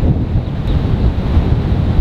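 Wind buffeting the microphone outdoors: a loud, low noise that flickers constantly.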